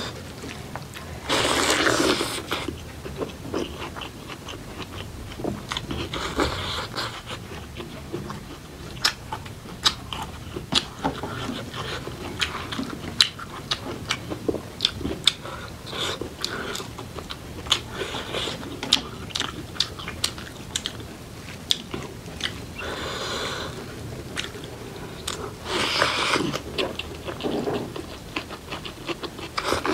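Close-up eating sounds of a person eating a rice-and-curry meal: chewing with many sharp, wet mouth clicks and crunches, and a few louder noisy bursts, the loudest about two seconds in.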